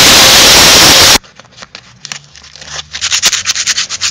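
Angle grinder grinding a small sheet-metal clamp part, a loud hiss that cuts off abruptly about a second in. Then come quieter scrapes and, near the end, a quick run of sharp metallic clicks as the small metal part is handled.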